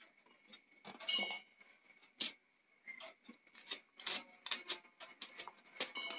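Knife cutting shallots over a stainless steel mixer-grinder jar: irregular sharp clicks and taps as the blade cuts through and the slices drop into the steel jar.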